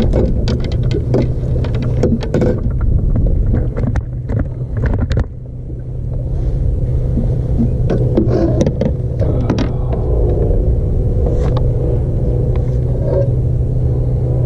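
Clicks and knocks from a tripod and camera being handled and adjusted, thickest in the first five seconds and again briefly around the middle, over a steady low mechanical hum.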